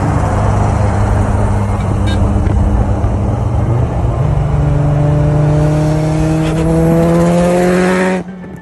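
800 hp Mitsubishi Evo accelerating under load, its engine note rising steadily in pitch through a gear from about four seconds in, then cutting off suddenly near the end.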